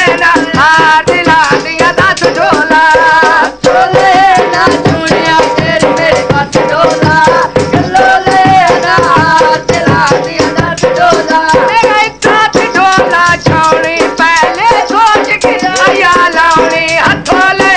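Punjabi folk mahiya music: a melody over fast, busy jingling percussion.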